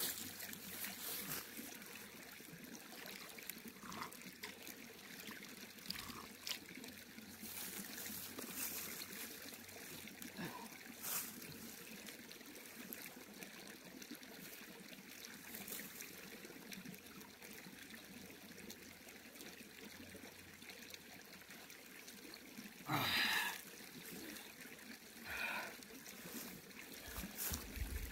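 Small mountain creek trickling steadily, with light splashing as a hand dips into the water. Two short louder sounds stand out near the end.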